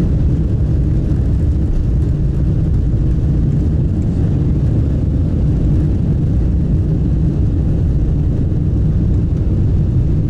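Steady loud rumble of a Boeing 747-400 airliner heard inside the passenger cabin: jet engine and airflow noise, deep and even, with no changes.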